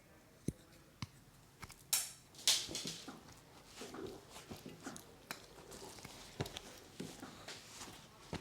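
Scattered small clicks and taps with two short rustling bursts about two seconds in, like tools and items being handled.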